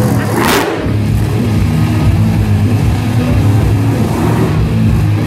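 Monster truck engine running loud in an arena, mixed with music over the PA. There is a brief loud burst of noise about half a second in.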